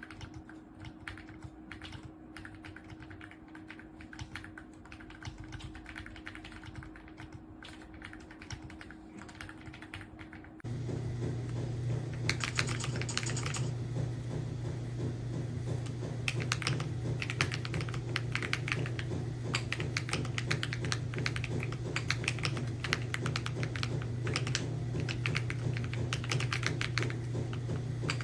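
Typing on an AULA F99 mechanical keyboard with pre-lubed linear switches: a fast, continuous run of keystroke clacks. About ten seconds in, the sound steps up in loudness and a steady low hum comes in under the typing.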